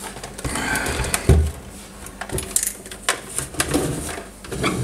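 Handling noise from a valve radio's dark plastic cabinet being turned over on a workbench: scattered knocks, scrapes and rustles, with one louder thump about a second in.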